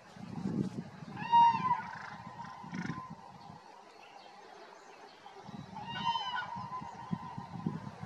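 A corvid giving two harsh caws, one about a second in and another about six seconds in, while mobbing a sparrowhawk. A low rumble comes and goes underneath.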